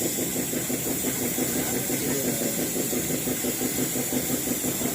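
Caterpillar 320D2 excavator's diesel engine running at a steady speed, with a fast, even firing pulse and a constant hiss over it.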